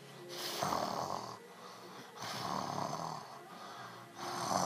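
A person making three drawn-out breathy noises with the mouth and throat, each about a second long, with short pauses between.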